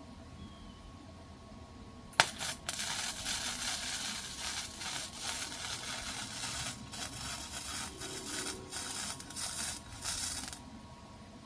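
Electric welding arc crackling and sputtering on the lawnmower handle: a sharp crack about two seconds in as the arc strikes, then a steady sizzling crackle with brief breaks, for about eight seconds, cut off abruptly near the end.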